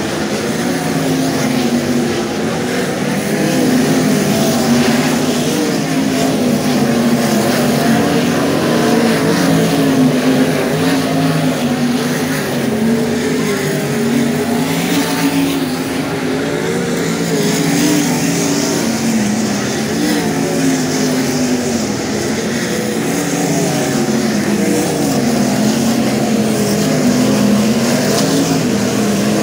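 Several 410 winged sprint car V8 engines running together around a dirt oval, a loud overlapping drone whose pitch keeps rising and falling as the cars throttle through the turns and down the straights.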